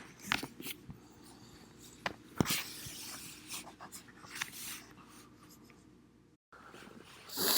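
Quiet scattered clicks, taps and scratchy rustles of small objects being handled close to the microphone.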